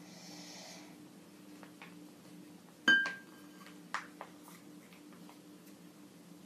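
Condensed-milk pouch handled over a glass bowl: a brief rustle, then one sharp clink with a short ring about three seconds in and a softer click a second later. A low steady hum runs underneath.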